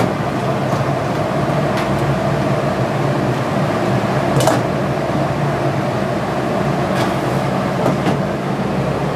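Steady mechanical hum of kitchen ventilation, with a few light clicks and knocks, the clearest about halfway through.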